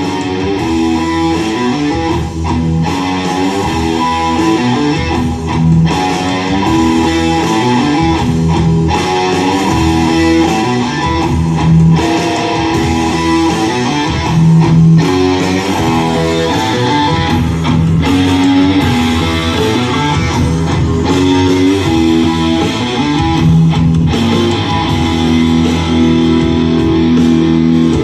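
Guitar-led rock music played loud through a pair of Sony SS-B3000 three-way bookshelf speakers and picked up by a camera microphone in the room.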